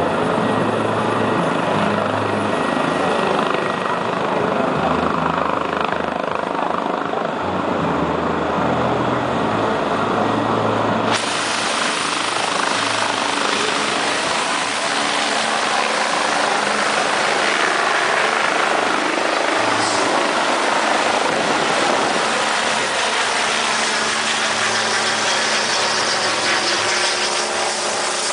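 Medical helicopter's turbine engines and rotor running at high power as it lifts off: a steady heavy drone with a low throb. About eleven seconds in, the sound grows suddenly brighter and harsher.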